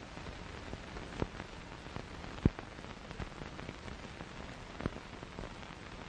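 A steady hiss with scattered crackles and sharp clicks, the loudest click about two and a half seconds in.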